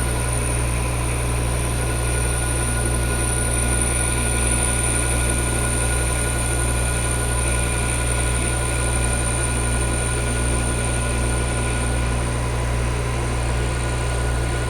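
Metal lathe running steadily with a low hum and a thin high whine while a boring bar is fed slowly out of the bore.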